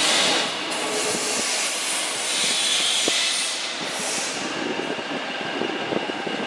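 MTR South Island Line S-train electric multiple unit running along the track, with steady wheel-and-rail running noise and a high hiss that swells twice.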